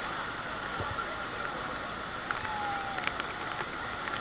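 Steady rushing roar of Niagara Falls and its spray, heard from close under the falls, with no breaks.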